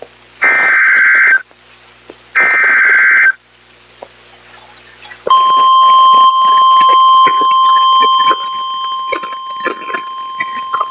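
Emergency Alert System SAME header on NOAA Weather Radio: two raspy one-second bursts of two-tone digital data a second apart, announcing a new warning. A few seconds later the steady 1050 Hz weather radio warning alarm tone starts, with static crackling under it.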